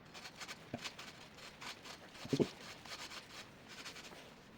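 Bottom bracket thread-chasing tool being turned by hand in a steel bicycle frame's bottom bracket shell: a run of short scraping, rasping strokes as the cutters clean up the threads. A brief louder, lower sound comes about two and a half seconds in.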